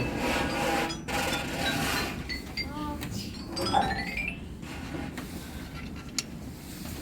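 A pitched percussion instrument being tried out: a few scattered short high notes, then a quick rising run of notes about three and a half seconds in.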